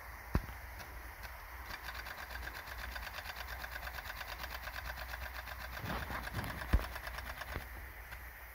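Rain gun sprinkler running under pressure, giving a fast, even mechanical clatter over a steady rush and low rumble. There are a couple of sharp knocks, the loudest near the end.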